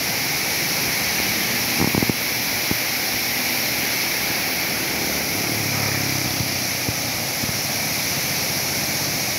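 Water overflowing the edge of a brim-full steel canal and falling back into the river below, making a steady rushing splash. A few knocks come about two seconds in, and a vehicle's low engine hum passes about six seconds in.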